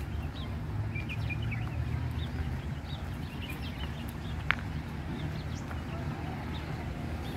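Small birds chirping in many short, high calls over a steady low rumble, with one sharp click a little past halfway.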